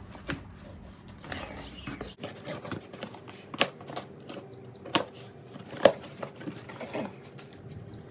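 A cardboard box being handled and opened: scattered sharp knocks and taps, four or five of them louder, with short rustles of cardboard in between.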